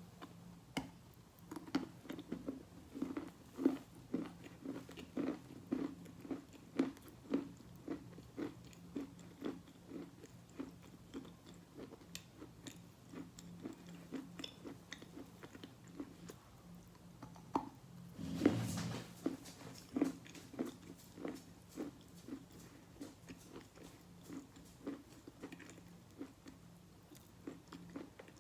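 Close-up chewing of wet sawn Khrapovsky chalk: a steady run of soft crunches, about one and a half a second, as the chalk breaks down into a mush. One louder, longer crunch comes about two-thirds of the way through.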